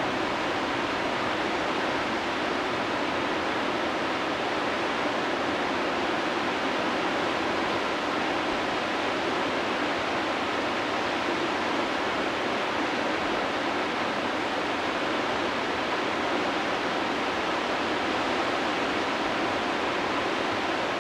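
Whitewater river rapids rushing: a steady, even noise of churning water that does not change.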